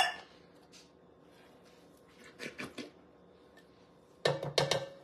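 Tin cans being emptied into a metal cooking pot: a sharp clank at the start, a few light taps about two and a half seconds in, and a quick run of three or four knocks of can against pot near the end.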